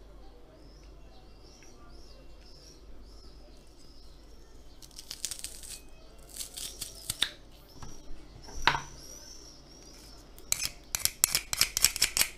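Metal garlic press clicking and clacking as garlic cloves are squeezed through it, in several bursts from about five seconds in, with a dense run of clicks near the end.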